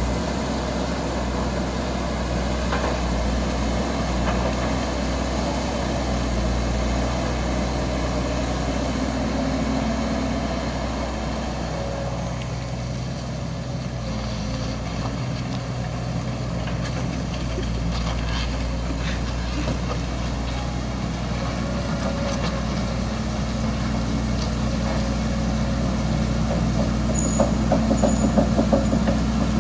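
Heavy diesel engine of an excavator running steadily, holding a low drone. A quick burst of rattling comes near the end.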